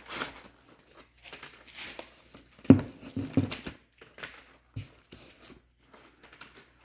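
Packaging crinkling and rustling as items are handled and pulled from a box, with a couple of light knocks about three seconds in.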